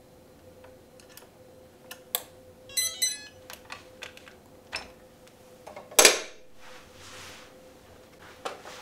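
Hands handling the metal body of a 1/16 RC hydraulic excavator: light clicks and a brief metallic clinking rattle, then one loud snap about six seconds in as the engine-compartment hatch over the battery is shut, and a few more light clicks near the end. A faint steady hum runs underneath.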